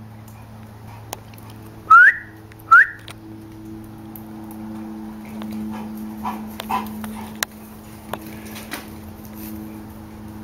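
Two short, loud squeals rising in pitch, a little under a second apart, from the dog or the fawn it is playing with, then a few fainter cries later on. A steady low hum runs underneath.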